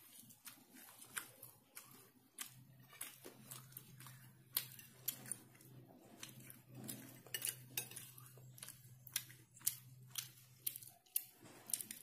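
Metal spoon clinking and scraping on a ceramic plate, in irregular sharp clicks, as meat is pulled off a fried chicken drumstick and rice is scooped up. A faint low hum runs under most of it.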